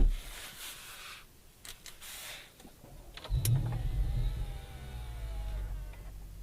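A sharp thump at the very start, then about three seconds in the Audi RS6 C7 Performance's twin-turbo V8 starts: a brief flare of revs that settles into a steady idle.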